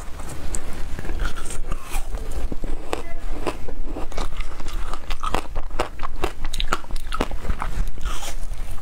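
Repeated sharp crunching of frozen passion-fruit shaved ice being bitten and cracked between the teeth, many irregular cracks in a row.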